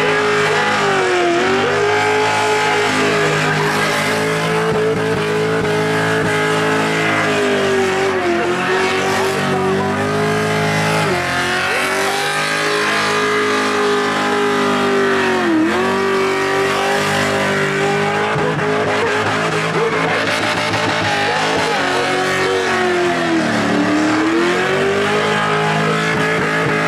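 V8 engine of a Holden Commodore held at high revs through a long burnout, with the rear tyres spinning and screeching. The revs dip sharply and climb back about five times.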